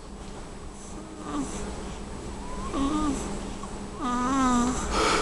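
Nasal snoring while asleep: three squeaky, pitched breaths about a second apart, each louder than the last, then a noisy snort near the end. Noisy breathing through a stuffy, congested nose.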